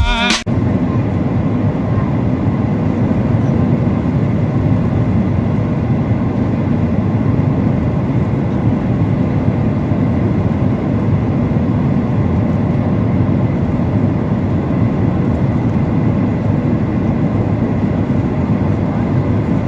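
Steady cabin roar inside a Boeing 737-800, the low, even rumble of its CFM56 jet engines and the airflow along the fuselage heard from a window seat in the cabin.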